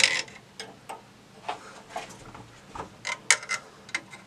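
A long bolt being pushed through holes in a metal mount: scattered metallic clicks and scrapes, bunched together about three seconds in.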